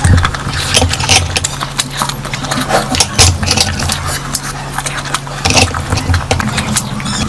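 Close-miked eating: wet chewing and lip-smacking, with irregular clicks several times a second over a steady low hum.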